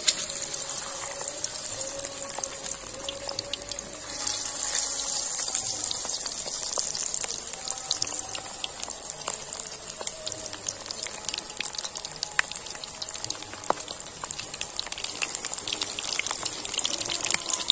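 Battered quail pieces deep-frying in hot mustard oil in a kadhai: a steady sizzle full of small pops and crackles, starting suddenly as the pieces go into the oil and getting a little louder about four seconds in.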